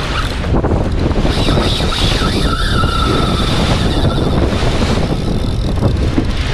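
Boat running on open water: steady wind buffeting the microphone over the rush of water against the hull.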